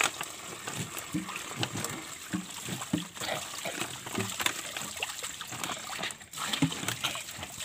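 Spring water trickling and splashing from a small spout onto stones and into plastic bottles as they are filled. Scattered clicks and knocks come from the plastic bottles being handled.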